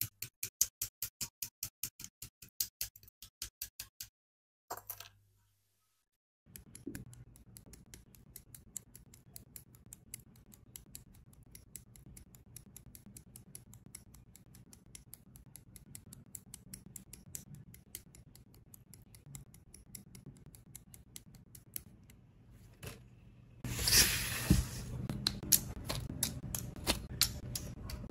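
Hobby side cutters snipping plastic model kit parts off their sprues: an even run of sharp clicks, about four a second, then a brief silence, then faint scattered clicks over a low hum that grow louder and denser near the end as plastic parts are handled and clicked together.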